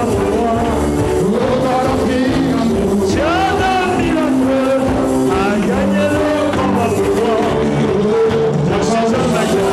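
Live church worship music: a voice singing over a band's sustained chords and bass.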